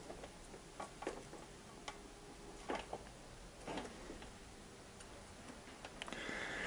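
Faint, irregular clicks and light taps as small parts, wires and tools are handled at a workbench, a few about a second apart. A soft rustle starts near the end.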